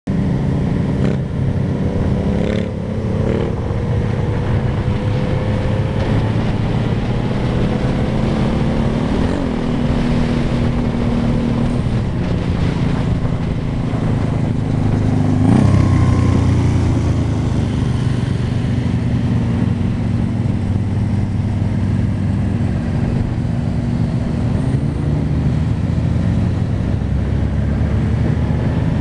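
Motorcycle engine running steadily at cruising speed, as heard from the rider's own bike, over a steady rush of wind. About fifteen seconds in, the engine note briefly rises and drops back.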